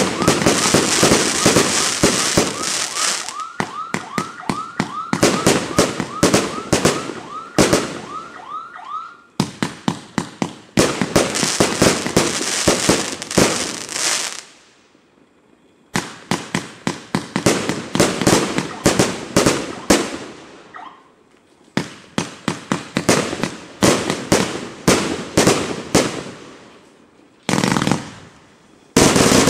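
A 1.2-inch, 100-shot consumer firework cake firing in rapid volleys of shots and bursts, with short whistles on many shots in the first part and a hissing crackle after some volleys. Firing stops briefly three times: about halfway through, about two-thirds of the way through, and near the end.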